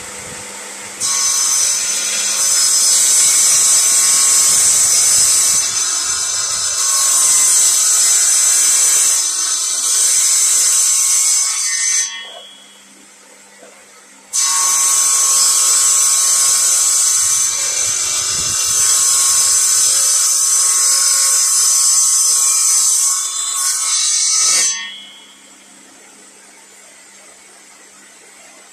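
Table saw cutting lengthwise through timber boards to make the tongue-and-groove joints: two long cuts of about ten seconds each, a loud high-pitched whine of blade in wood. Between the cuts and after the second one the saw runs on quietly with no load.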